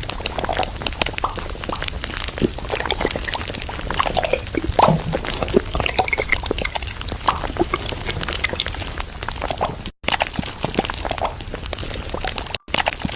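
Groceries and containers being handled and set down: a busy run of clicks, knocks and rustles. The sound cuts out briefly twice, about ten seconds in and near the end.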